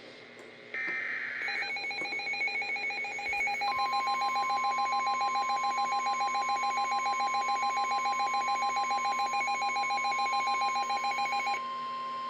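NOAA Weather Radio alert for a Special Marine Warning. Brief screeching SAME data bursts come first, then a fast-pulsing multi-tone alert beep. A steady 1050 Hz warning alarm tone joins about three and a half seconds in and continues after the pulsing stops near the end.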